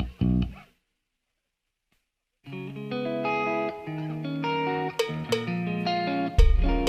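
A band playing through the PA: a few drum-kit hits that stop dead, then, after a silent gap of under two seconds, a guitar plays a melodic line of single notes. Near the end the drum kit, with heavy kick drum, comes back in under the guitar.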